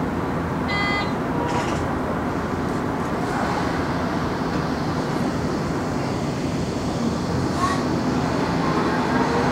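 Hibiya Line subway train running steadily through a tunnel: an even rumble of wheels on rail and running gear, heard from the cab. A brief high tone sounds about a second in.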